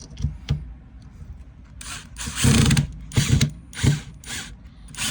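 Electric drill run in short bursts, driving in screws: a long burst about two seconds in, then three shorter ones.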